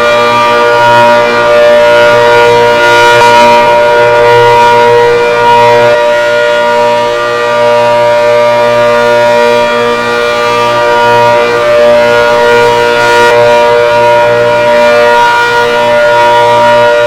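ACA Hurricane civil defense siren sounding a loud, steady tone at full speed, its level rising and falling slightly.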